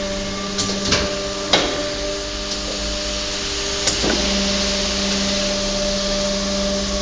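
Vertical two-station injection molding machine for shoe soles running, with a steady hydraulic hum. A few sharp metal knocks come about one, one and a half and four seconds in, around when the mold station slides in under the press. After that the hum grows stronger.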